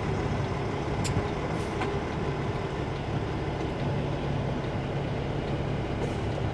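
Semi truck's diesel engine idling steadily, heard from inside the cab while the truck waits at a stop sign, with a sharp click about a second in.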